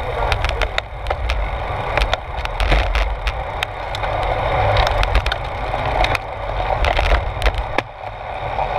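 Wind and road noise from a road bicycle riding fast over rough asphalt, heard through a handlebar-mounted camera: a steady low rumble with many sharp clicks and rattles.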